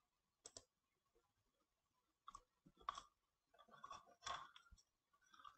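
Near silence broken by a few faint, short clicks and ticks: one about half a second in, a pair a little past two seconds, a small cluster around four seconds, and one near the end.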